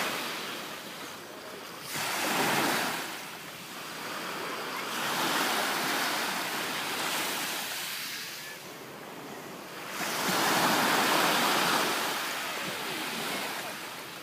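Sea waves breaking and washing up on the shore, swelling and falling back every few seconds, with a sharp break about two seconds in and the loudest wash about ten seconds in.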